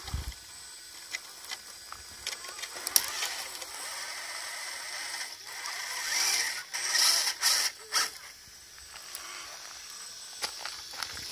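RC scale rock crawler's electric motor and geared drivetrain whining as it creeps over rocks and moss, louder for a couple of seconds in the middle, with small clicks and scrapes of the tyres on rock and twigs.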